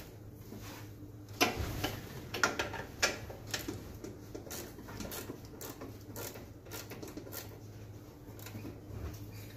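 Metal clinks and ticks of a wrench working the bolts on an ATV's rear axle bearing carrier, irregular, with the sharpest knock about a second and a half in and a cluster of clinks a second or two later.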